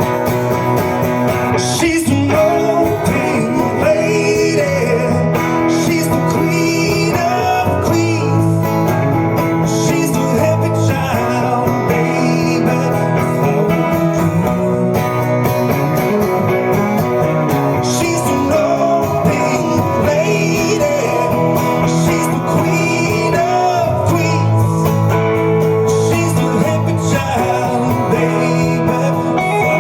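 A live band playing an Americana/country song, with guitars to the fore and a steady full sound throughout.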